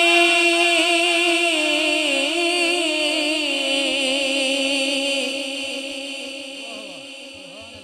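A male naat reciter's voice holds a long, wavering note after "Ya Nabi" through an echoing sound system. It fades slowly over several seconds.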